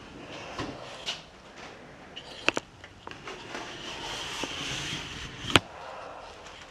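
Light handling noises: a few sharp clicks or knocks, the loudest about five and a half seconds in, with a soft rustle in between.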